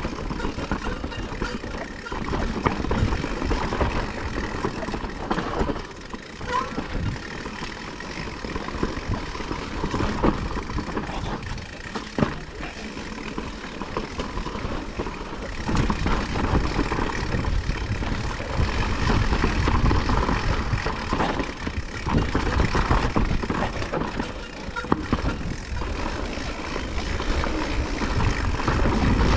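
Blizzard wind gusting and buffeting the microphone: a loud, rushing noise with a deep rumble that swells and eases, growing heavier about halfway through.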